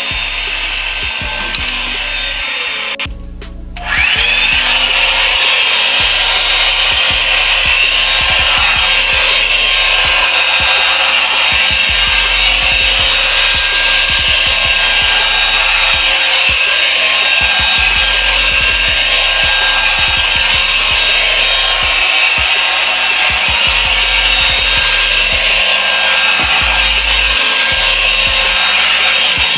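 Revlon hot-air brush dryer blowing steadily. About three seconds in it cuts out for a moment, then comes back on louder with a short rising whine as the motor spins up, and it runs on steadily after that.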